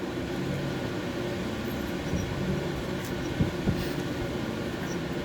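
Steady mechanical hum with a few constant tones, with two light knocks about three and a half seconds in.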